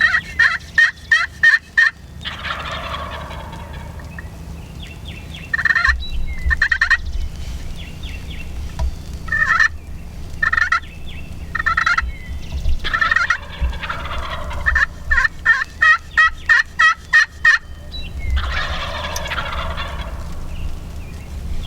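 Wild turkey toms gobbling twice, one long rattling gobble a couple of seconds in and another near the end. Between them come runs of short, sharp, evenly spaced yelp-like notes, about five a second.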